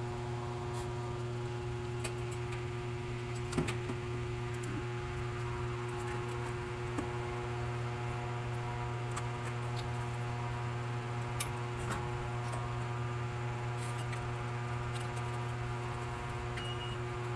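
Steady electrical or machine hum made of several constant tones, with a few short, light clicks and rustles from movement in a cardboard whelping box.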